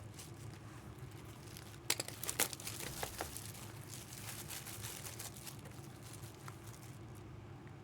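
Faint crinkling and crackling of trading-card packaging being handled, with a cluster of small sharp crackles in the middle.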